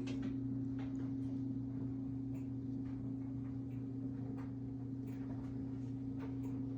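A steady low electrical hum on two fixed low tones, with faint scattered ticks.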